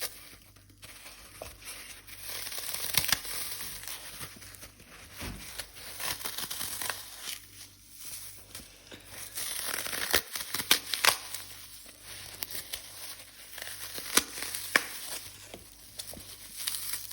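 Glitter-coated dry floral foam being crushed: dense crunching and crackling with many sharp snaps, swelling and easing off in waves.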